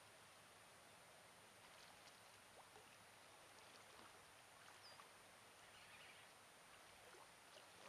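Near silence: faint outdoor ambience with a steady hiss and a few soft ticks, and one brief high chirp about five seconds in.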